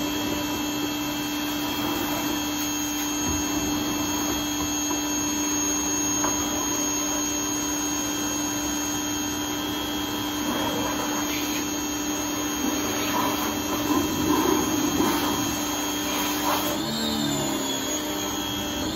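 Small electric pressure washer running steadily with a constant motor hum and whine, its water jet spraying against a plastic wheelie bin. The tone wavers and shifts pitch near the end.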